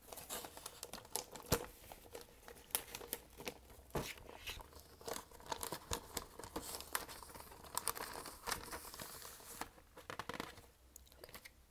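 Close-up crinkling and rustling of paper and plastic record packaging as a vinyl record and its paper poster are slipped back into their sleeves, with sharp ticks mixed in. It dies down briefly near the end.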